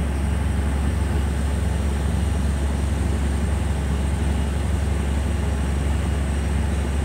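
Large steel fishing boat's diesel engine running at a steady idle: a continuous deep drone with no change in pace.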